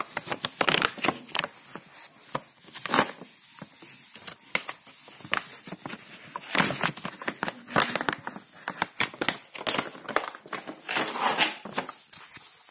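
Plastic packaging of dishwasher detergent tablets being handled: irregular crinkling and rustling with sharp clicks, coming in bursts.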